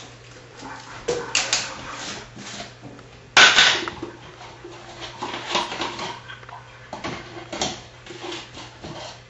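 Kitchen handling noises: irregular clinks, taps and clatter of bottles and containers being moved on a countertop, with one louder, rushing burst lasting about half a second about three and a half seconds in.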